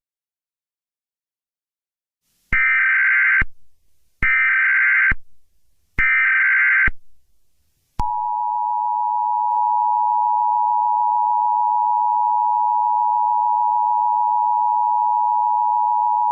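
Emergency Alert System tones: three short bursts of SAME header data, each just under a second long, followed by the steady two-tone EAS attention signal held for about eight seconds. This is the sequence that opens an emergency alert broadcast.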